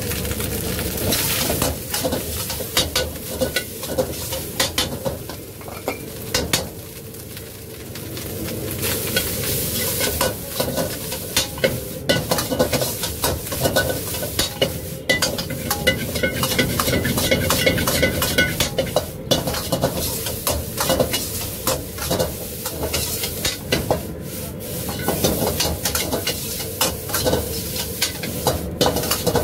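Chicken fried rice stir-frying in a wok: sizzling, with a metal ladle and spatula scraping and clanking against the pan many times over.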